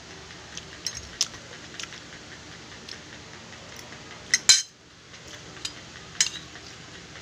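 Metal fork and spoon clinking and scraping on a glass plate while eating: scattered light clinks, with the loudest pair about four and a half seconds in.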